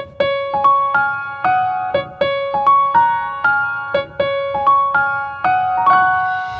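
Solo piano melody of single struck notes, each ringing and fading, playing a short phrase that repeats about every two seconds.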